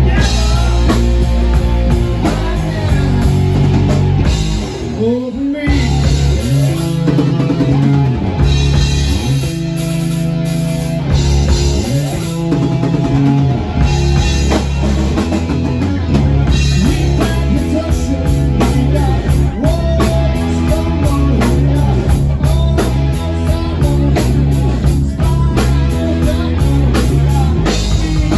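Live rock band playing loudly: electric guitar and drum kit with a male lead singer.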